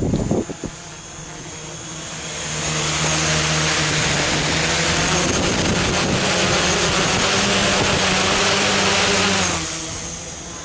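FPV quadcopter's brushless motors and propellers buzzing steadily in a hover. The buzz swells about two seconds in, holds, then drops away near the end.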